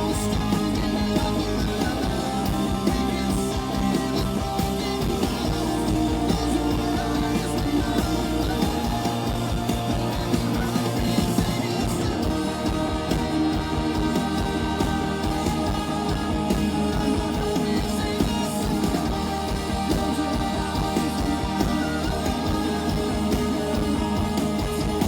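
Live rock band playing an instrumental passage led by electric guitar over bass and drums, with no vocals.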